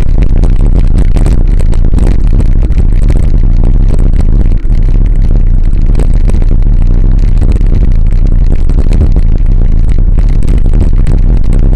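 Wind rushing over the microphone of a camera riding along on a moving bicycle, heavy and low, with road noise and many small knocks.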